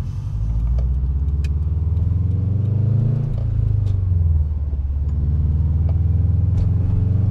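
Subaru Forester XT's turbocharged flat-four engine pulling through the gears: its pitch climbs, drops suddenly at a gear change about three seconds in, climbs again, dips briefly once more around five seconds, then rises steadily.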